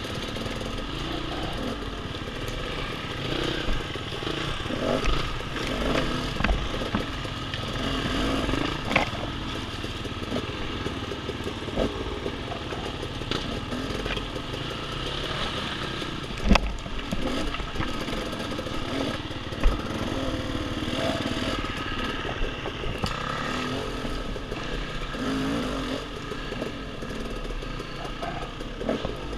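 Dirt bike engine running as it is ridden over a trail, its note rising and falling with the throttle, with clattering and a couple of sharp knocks about 16 and 20 seconds in.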